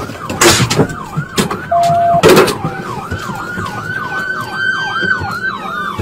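Police car siren on a fast yelp, sweeping up and down about three times a second. Two loud crashes, about half a second and two seconds in, as the cruiser smashes through a fence, with a short steady tone just before the second.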